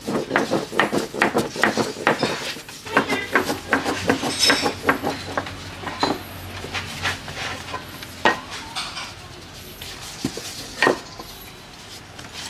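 Metal kitchen utensils clinking and knocking against cookware and dishes, in quick runs of strikes at first and then single knocks with gaps between them.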